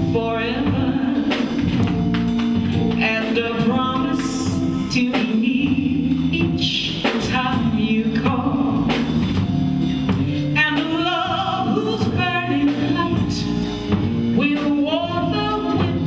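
A female vocalist singing live into a microphone over guitar and drum-kit accompaniment. She sings wordless runs that slide up and down in pitch.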